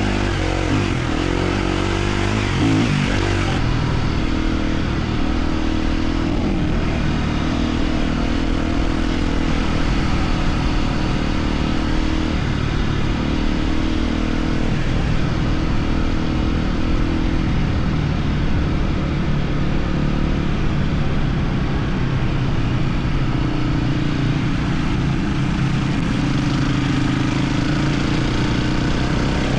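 Husqvarna FE250 dirt bike's four-stroke single-cylinder engine running while ridden off-road, its revs rising and falling with the throttle.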